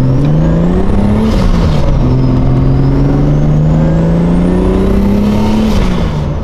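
Single-turbo BMW inline-six in a swapped Subaru WRX, heard from inside the cabin under hard acceleration. The revs climb, drop at a gear change about a second and a half in, climb more slowly through the next gear and drop again near the end. A high turbo whistle rises and falls with them, and there is a hiss at each shift.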